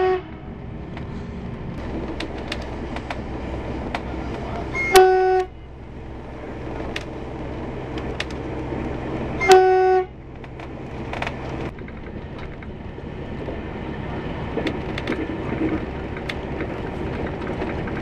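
Horn of a Y2 diesel passenger railcar giving two short blasts about four and a half seconds apart, heard from inside the carriage over the steady rumble of the train running on the track; a longer blast cuts off right at the start. These are warning signals of the kind the train sounds at unguarded level crossings.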